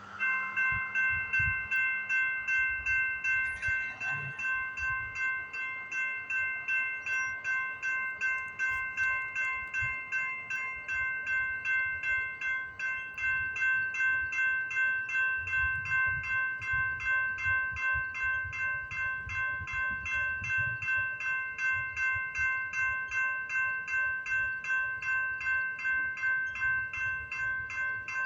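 Railroad crossing warning bell starting up and ringing steadily at about two strokes a second, signalling an approaching train.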